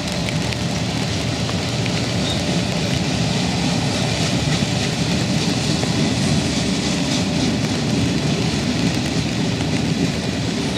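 Freight train rolling past, a steady rumble of railcars on the rails with faint clicks.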